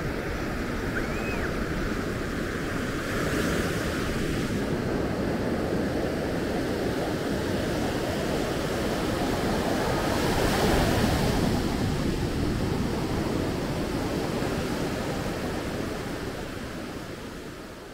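Ocean surf breaking and washing up a sand beach: a steady rush of water that swells twice, a few seconds in and again around ten seconds, then fades out at the end.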